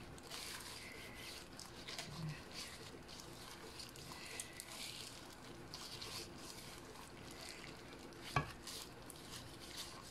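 Faint rustling and wet squishing of a plastic-gloved hand rubbing egg white over a whole seasoned fish in a baking dish, with one sharp tap about eight seconds in.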